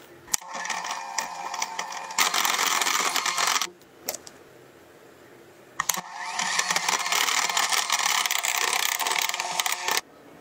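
Electric hand mixer running, its beaters whipping butter with cocoa powder in a glass bowl. It runs twice, for about three and four seconds, with a short pause between, and cuts off suddenly near the end.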